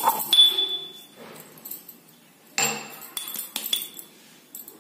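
Steel pestle striking and scraping in a small stainless-steel mortar, crushing green cardamom with sugar: metallic clinks with a ringing tone. A few strokes come right at the start, one louder clink a little past halfway, then several lighter ones.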